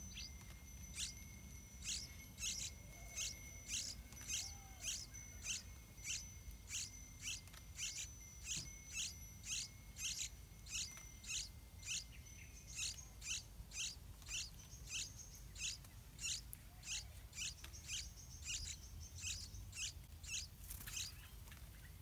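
Yellow-vented bulbul nestling begging for food, repeating short high chirps about twice a second. A thin, steady high whine runs beneath them for the first half.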